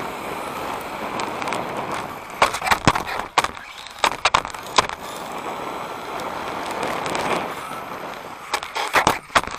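Tyre and wind rush picked up by a camera riding on a Tamiya TA06 1/10 electric RC touring car at speed on an asphalt track, with several clusters of sharp clicks and knocks as the chassis jolts over bumps and a kerb.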